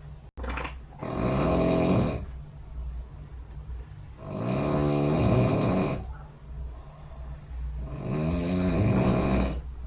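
A person snoring: three long snores about three and a half seconds apart, each pitched and dipping then rising, with quieter breathing in between.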